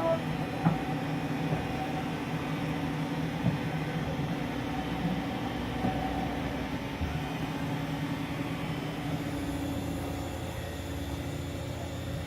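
Haas VF-0 vertical machining center running: a steady machine hum with a few light clicks, the first about a second in.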